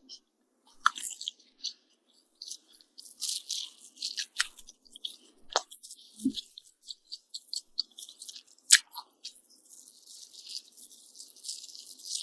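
Close-miked chewing of fried egg on toast: wet mouth sounds and crunches with scattered sharp clicks, the loudest about three-quarters of the way through.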